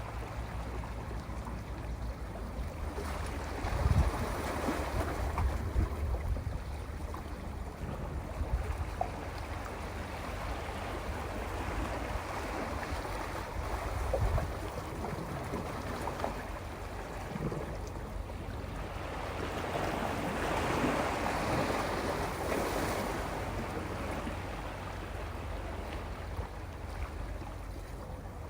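Sea waves washing in and out over a rocky shore, a steady wash that swells in slow surges, strongest about four seconds in and again around twenty seconds in. A few low thumps break through it.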